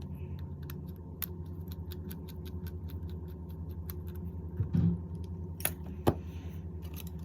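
Small metallic ticks and clicks of a precision screwdriver working the two bottom screws out of an iPhone XS Max. There is a soft knock a little under five seconds in and two sharper clicks near six seconds, over a steady low hum.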